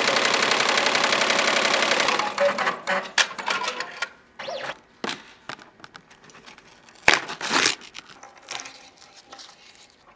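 Happy multi-needle embroidery machine stitching at speed for about two seconds, then stopping. This is followed by irregular ripping and crinkling as tear-away stabilizer backing and basting stitches are torn off by hand, with one sharp loud rip about seven seconds in.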